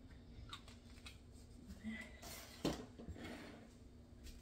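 Quiet kitchen handling sounds with one light knock about two and a half seconds in, as a small glass bottle of butter extract is set down on the countertop.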